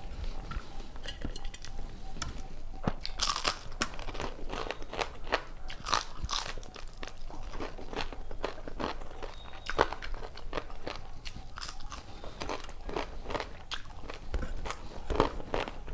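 Close-miked chewing of mouthfuls of rice and vegetable curry eaten by hand, with many short crisp crunches and wet mouth clicks.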